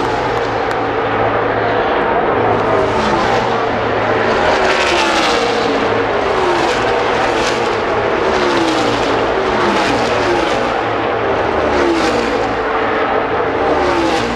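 NASCAR Cup Series stock cars' V8 engines at racing speed, passing the grandstand one after another about once a second, each pass falling in pitch as it goes by, over a steady din from the rest of the field.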